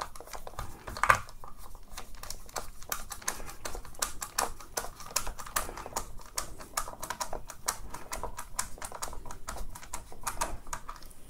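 Rapid, irregular clicking and rattling of the Dyson V10's plastic handle parts as they are worked together by hand.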